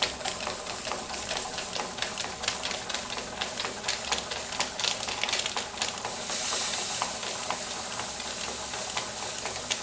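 Stuart model beam engine running on live steam, with a fast, rhythmic clicking over a steady hiss of steam. About six seconds in the steam hiss grows stronger.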